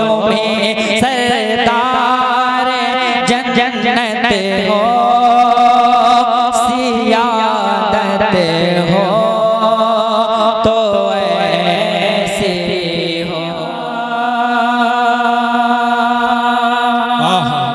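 Male voice singing a naat in long, wavering, ornamented notes over a steady background drone.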